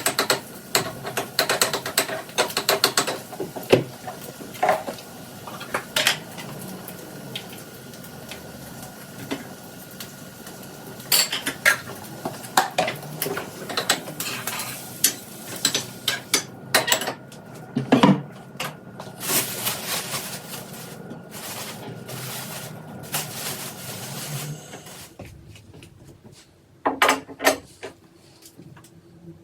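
Dishes and cutlery being handled: many separate clinks and knocks, thinning out near the end.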